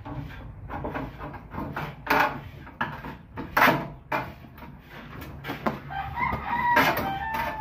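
Sharp knocks and scrapes of a breaker panel board enclosure being worked into an opening in a hollow-block wall. A rooster crows, most clearly near the end.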